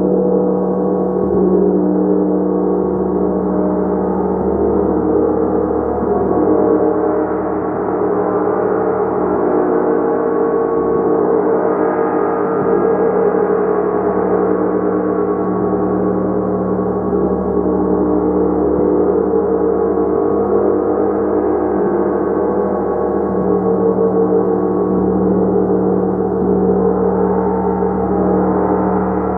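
Gong played continuously, a dense, sustained wash of many overlapping ringing tones at a steady loudness, with no single strike standing out.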